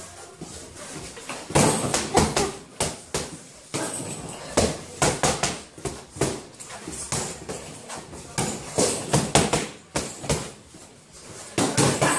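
Boxing gloves smacking in quick, irregular flurries of punches, several sharp hits at a time with short pauses between.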